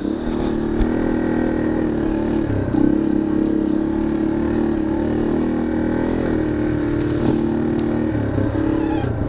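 Yamaha dual-sport motorcycle's single-cylinder four-stroke engine running at steady revs as the bike rides along the trail, with a brief break in its note about two and a half seconds in.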